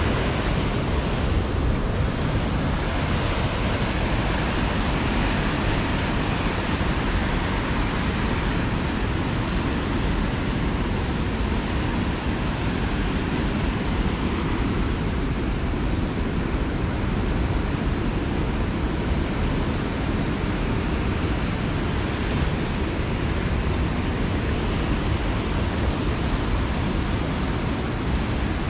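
Steady rush of river water pouring over the low weirs of a concrete channel, with wind rumbling on the microphone.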